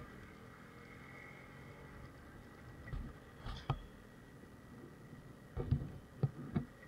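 Muffled, low running noise of a motorcycle ridden over a rough dirt track, broken by several sharp knocks and thumps as the bike jolts over bumps: a few about three seconds in and a quick cluster near the end.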